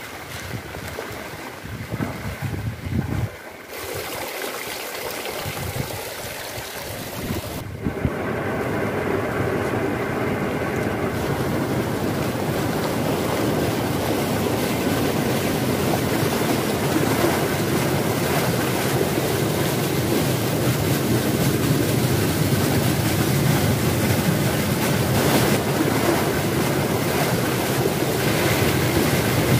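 Steady rushing of rain and a flooded, overflowing stream, growing louder and more even about eight seconds in.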